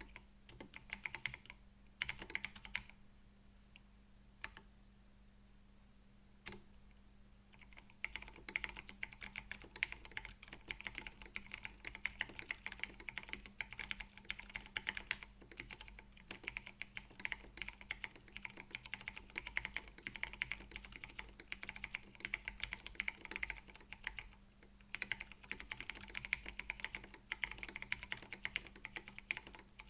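Mechanical keyboard with tactile Gateron Brown switches and PBT keycaps, typed on directly on the bare desk: a fast, continuous patter of key clicks and clacks. There is a few-second pause with only a couple of single keystrokes early on, and a brief break near the end.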